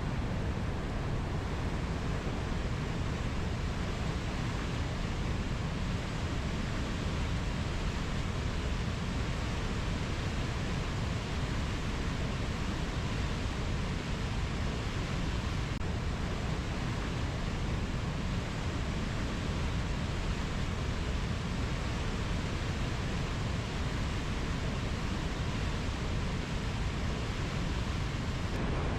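Steady rushing noise of a rainforest ambience, unchanging throughout, with no single bird or insect call standing out.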